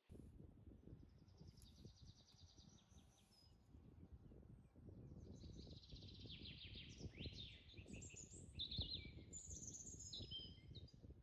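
Small birds chirping in quick trills and short calls, faint, over a low rumble of wind on the microphone that sets in suddenly at the start.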